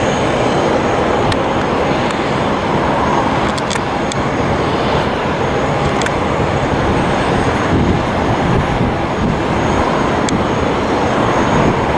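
Jet engines of an Airbus A330-200 airliner making a loud, steady roar as it rolls out just after touching down on landing.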